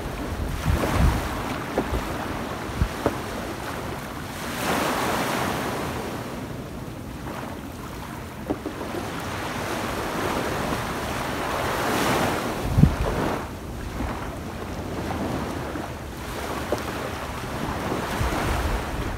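Small waves breaking and washing up a sandy beach, the surf swelling and ebbing every several seconds, with wind buffeting the microphone in a few low thumps.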